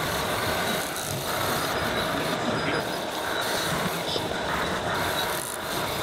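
Radio-controlled model trucks and construction machines running: a steady mechanical noise that swells and eases every second or so.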